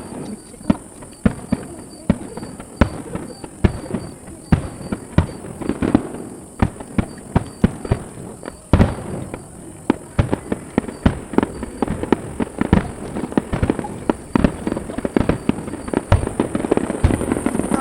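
Aerial fireworks shells bursting in a rapid, irregular barrage of sharp bangs, several a second, with the loudest cluster about halfway through.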